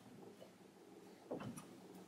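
Quiet room with one soft, short metal knock a little over a second in, from a hand handling a steel blade clamped in the jaws of a Smart's 66 bench vise.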